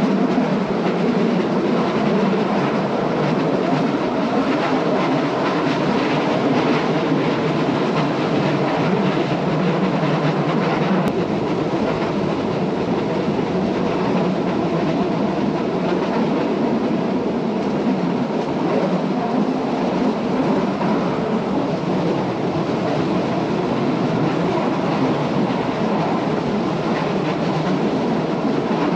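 Metre-gauge GoldenPass Line (Montreux–Oberland Bernois) train running along the track: a steady, even running noise of wheels on rails with no change in pace.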